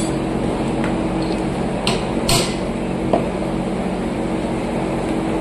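Hammer striking metal a few times during tractor rear-axle bearing and oil seal work; the loudest blow falls about two and a half seconds in. A steady low mechanical hum runs underneath.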